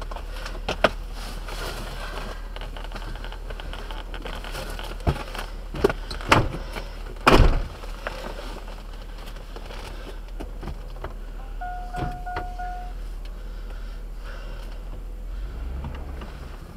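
Plow truck idling with a steady low hum, heard inside the cab, with a few sharp knocks and thumps between about five and eight seconds in, and a short beep about twelve seconds in.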